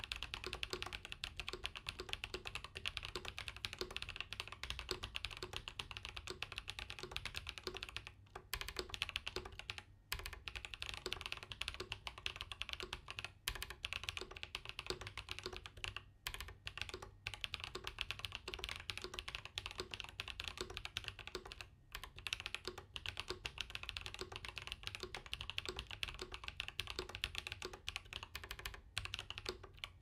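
Fast continuous typing on a RAMA KARA mechanical keyboard fitted with Neapolitan Ice Cream switches, lubed and filmed, and GMK keycaps: a dense stream of keystrokes broken by a few brief pauses.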